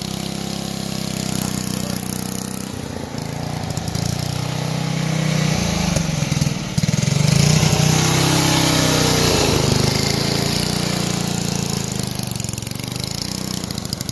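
Small riding lawn mower engine running after being fuelled and started, getting louder about halfway through, with its pitch wavering.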